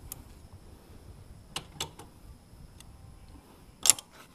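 Scattered light metal clicks and taps from a hand wrench being worked onto a motorcycle's front sprocket retainer bolts, with a louder clink about four seconds in.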